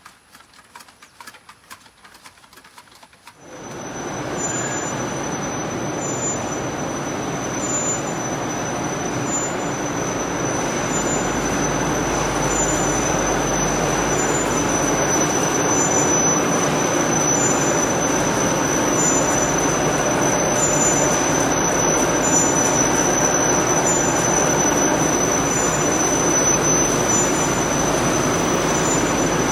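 Tea-factory machinery running: electric-motor-driven CTC rollers and leaf conveyors make a loud, steady mechanical din with a constant high whine. It starts about three and a half seconds in, after a quiet outdoor moment.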